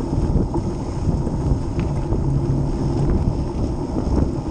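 Wind buffeting the microphone over the rumble of mountain bike tyres rolling on a sandy dirt track, with a few light rattles from the bike.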